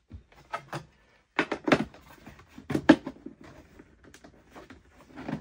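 Filters and the top cover of a Fumeclear FC-2001S solder fume extractor being fitted back into its housing: a run of knocks and clatters, loudest about one and a half and three seconds in.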